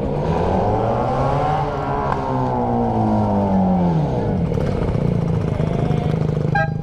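Yamaha YBR 125 single-cylinder motorcycle engine under way: it revs up for about two seconds, then winds down as the throttle comes off, and settles into a steady hum.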